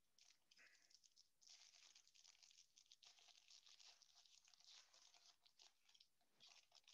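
Faint tearing and crinkling of a foil trading-card pack wrapper being ripped open by hand, in irregular crackly bursts that are densest through the middle.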